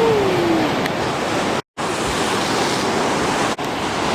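Surf breaking and washing on a beach: a steady, full rushing hiss. It cuts out completely for a moment about one and a half seconds in.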